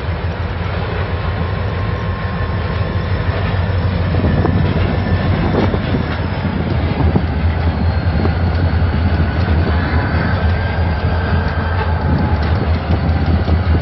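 Freight train rolling by: a steady low rumble with scattered clicks from the wheels over the rails, growing louder about four seconds in.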